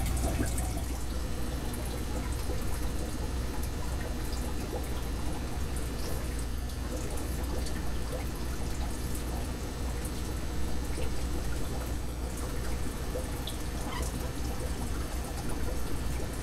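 Water trickling and splashing lightly in a bucket as fish are netted out and moved to an aquarium, with scattered small drips over a steady low hum.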